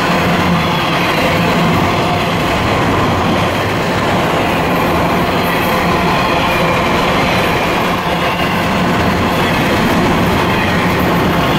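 Double-stack container well cars and trailer flatcars of an intermodal freight train rolling past at close range: the steady, loud noise of steel wheels running on the rails.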